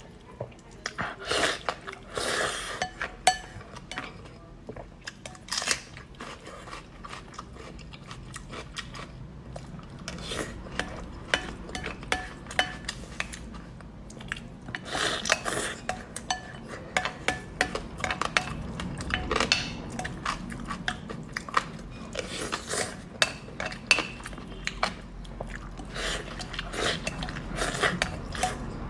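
Close-up eating sounds: spoon or chopsticks clicking and scraping against a bowl, with chewing between the many sharp clicks.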